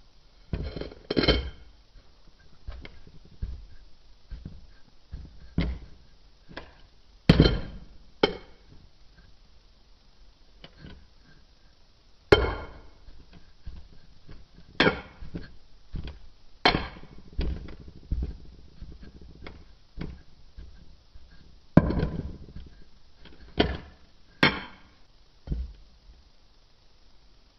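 Irregular knocks and thuds as a clear glass rod presses and chops kinetic sand packed into a stemmed wine glass. Some strikes carry a brief glassy ring.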